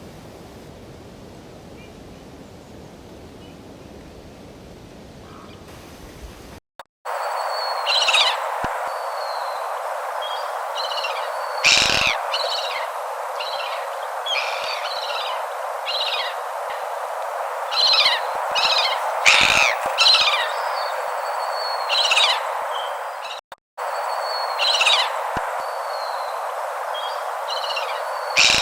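Faint steady background noise, then a sudden change to a steady hiss with short, high bird chirps and calls repeating again and again.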